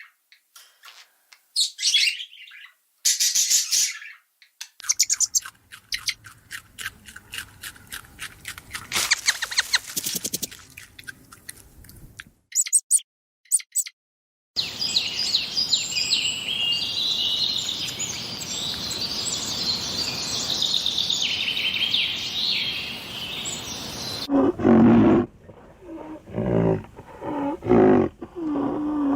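A string of short animal-call clips: high bird chirps and rapid chattering, then a dense chorus of many birds chirping at once. Near the end come a few low, repeated calls from a larger animal.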